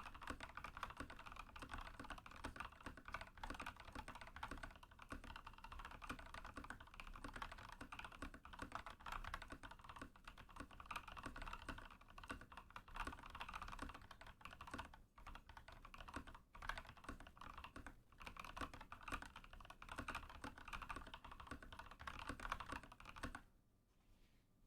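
Continuous typing on a Rama KARA custom mechanical keyboard with lubed Linear Thock Purple Boba linear switches, a polycarbonate plate and PBT keycaps: a dense run of keystrokes with a few brief pauses, stopping near the end.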